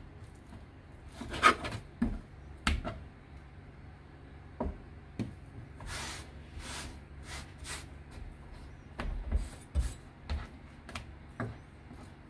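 Irregular knocks, taps and short scrapes of kitchen utensils being handled during fish preparation, the loudest about a second and a half in, with clusters around six to seven and nine to ten seconds, over a low steady hum.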